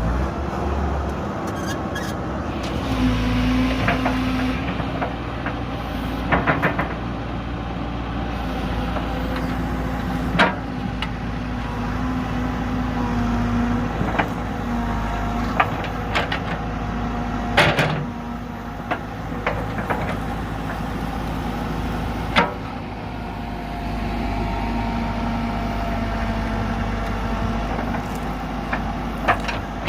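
Diesel engine of a JCB backhoe loader running steadily under working load. A few sharp knocks break in, loudest about ten, eighteen and twenty-two seconds in.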